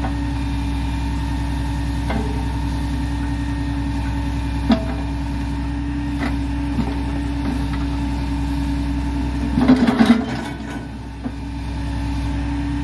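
Heavy truck-mounted grapple crane's diesel engine running steadily to drive the hydraulics, with a few single knocks and, about ten seconds in, a loud clatter of metal and wood as the grapple closes on a bundle of railroad ties.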